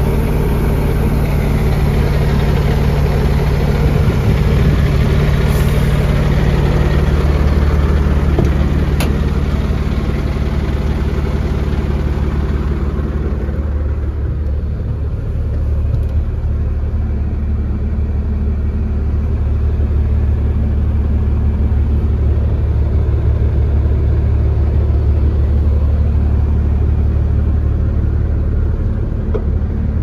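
Volvo FL7 truck's six-cylinder diesel engine idling steadily. About halfway through it turns duller and more muffled, heard from inside the cab.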